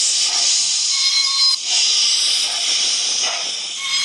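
Steam-hiss sound effect from a train-control app, played through a smartphone speaker: a loud, steady hiss with a brief break about one and a half seconds in.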